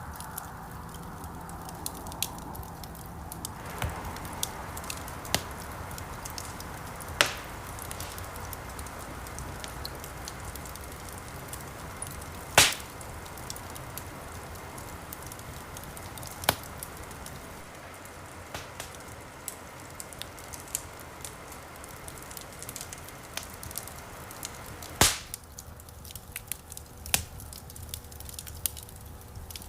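Campfire of burning wood, crackling steadily with scattered sharp pops, the loudest about 7, 12.5, 16.5 and 25 seconds in, over a low hiss of flame.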